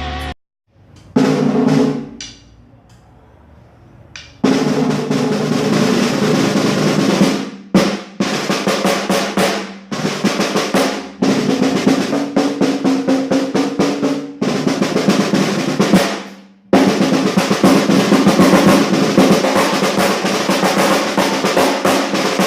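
Mapex 14x8 maple snare drum, fitted with a small muffler and heard through a phone's built-in microphone with no mixing. One stroke rings out, then comes a series of snare rolls and rapid strokes in phrases of a few seconds each. A ring carries through as the last roll dies away: the drum's overtone still comes through a little despite the muffler.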